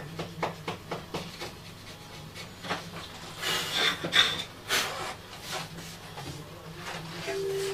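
Light clicks and taps of hand work on a wooden music box, with a few louder scraping strokes about halfway through as a small metal tool works against it. A steady low hum runs underneath.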